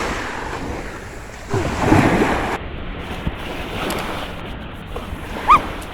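Sea waves washing on the shore, with a louder surge of surf about two seconds in, and wind buffeting the microphone. A short rising chirp near the end.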